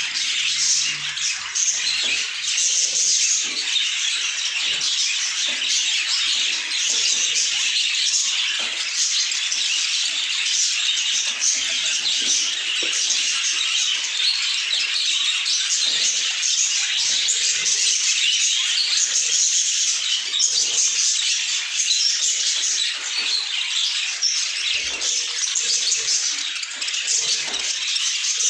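A flock of budgerigars chattering and chirping at once, a dense, unbroken mix of many high-pitched calls at a steady level.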